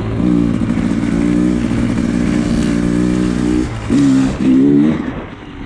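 Dirt bike engine running at a steady speed under throttle, then the throttle shuts off briefly and is blipped twice in quick succession before the engine drops back.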